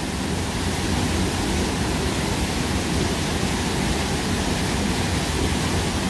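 Small waterfall pouring off boulders into a clear mountain-stream pool: a steady, even rush of falling water.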